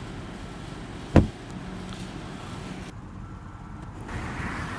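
A single sharp knock about a second in, as the car's sun visor is flipped shut, over a steady low cabin hum with the engine idling.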